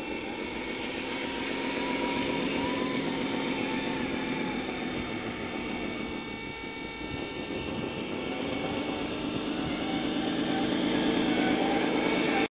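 Radio-controlled 8x8 tipper truck model driving, giving a steady mechanical drone with a higher motor whine. The drone dips briefly midway, then rises in pitch and grows louder over the last few seconds before cutting off suddenly.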